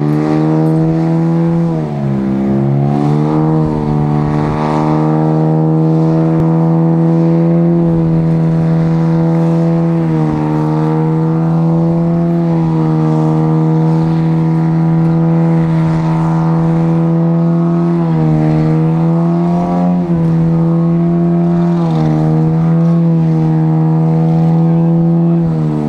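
Car engine held at high revs during a burnout, a steady, loud note. The revs dip and climb back about two seconds in, and drop briefly a few more times later.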